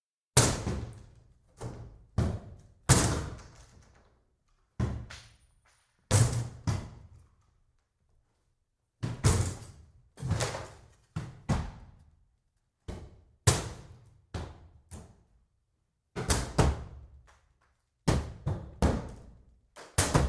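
An axe striking and smashing wooden boards: a series of loud, irregular blows, some in quick pairs, each with a short fading tail. The first blow lands about half a second in.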